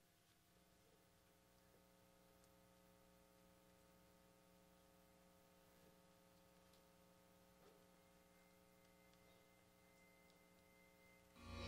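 Near silence with a faint steady electrical hum. Music starts suddenly right at the end.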